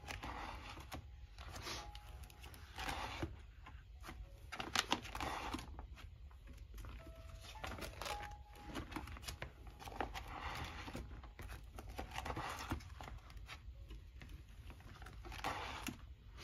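Clear plastic pocket sleeves of a photocard binder being turned page by page: repeated crinkling swishes of plastic, one every second or two.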